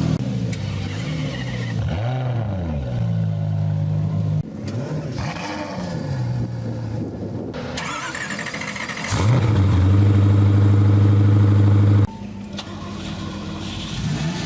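Car engines, one clip after another with abrupt cuts between them: engines starting, revving up and dropping back to idle. The loudest is a steady high-idle run in the middle that cuts off suddenly.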